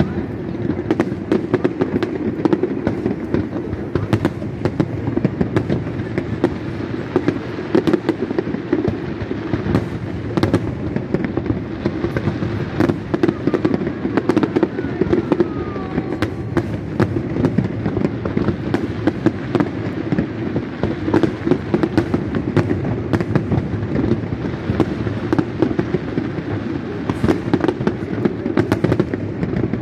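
Large aerial fireworks display: a continuous booming rumble from shells going off, with many sharp crackles and bangs coming fast throughout.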